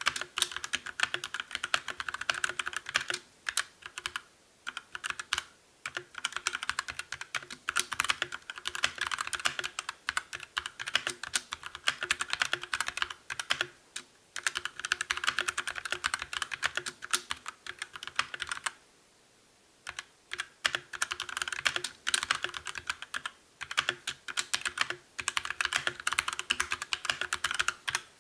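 Fast typing on a mechanical keyboard in a switch sound test: dense runs of key clacks broken by short pauses, the longest about a second, around two-thirds of the way in.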